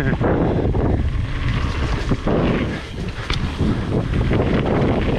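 Wind buffeting the microphone of a camera on a full-suspension mountain bike riding downhill, over a steady tyre rumble with frequent clattering knocks from the bike on rough trail.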